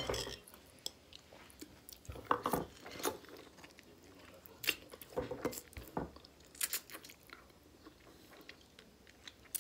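A person chewing and biting into a piece of chicken held in the fingers: scattered, irregular wet mouth clicks and smacks.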